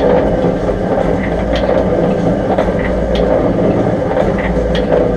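A 1947 MacEntee bore pump running with a steady mechanical drone and a low hum. Sharp clacks come every half second to a second. The bottom bung is out, letting water run to purge air from the pump.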